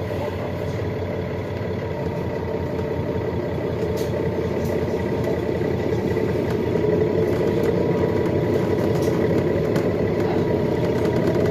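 Nova Bus LFS Hybrid transit bus heard from on board: a steady engine and drivetrain hum with a faint whine, slowly getting louder, then a rising whine near the end as the bus pulls away from the stop.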